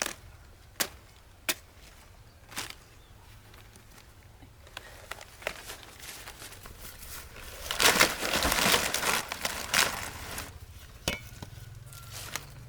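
A few sharp knocks in the first seconds, then about three seconds of loud crunching and crackling starting near eight seconds in, with scattered clicks after.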